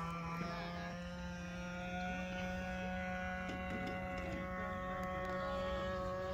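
Model airplane engine heard at a distance as the plane flies overhead: a steady buzzing drone whose pitch rises slowly.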